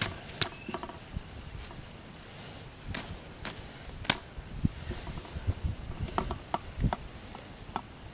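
Hands packing and shaping clods of damp earth into a small makeshift stove: irregular soft thumps with scattered sharp clicks.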